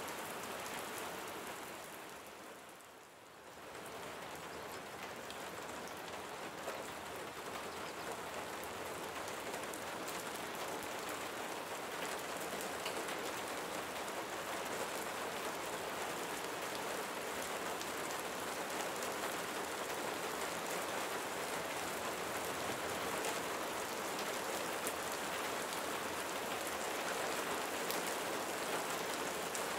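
Steady rain falling, a dense hiss of drops with fine scattered patters. About three seconds in it briefly fades down and swells back.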